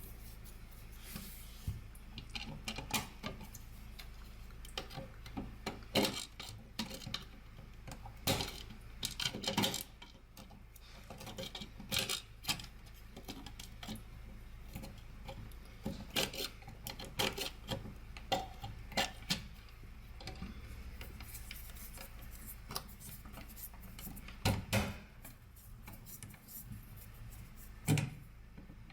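Irregular clicking, tapping and scraping of hard objects being handled, with a few sharper knocks standing out, the strongest near the end.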